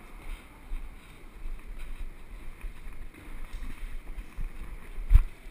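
Low, uneven rumble of wind and handling noise on a body-worn GoPro's microphone, with one sharp thump about five seconds in.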